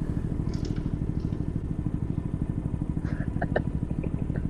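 A 50cc single-cylinder moped engine idling with an even, rapid low pulse.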